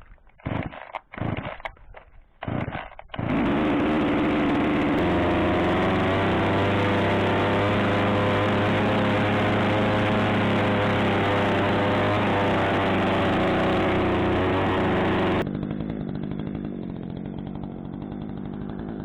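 Chainsaw: several short bursts, then about twelve seconds of loud, steady running at high speed, as when cutting a log from the felled maple, dropping to a quieter steady run near the end.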